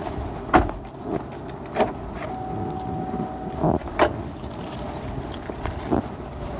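Steady vehicle noise with about six sharp clicks and knocks scattered through it, and a short steady beep lasting about a second starting a little over two seconds in.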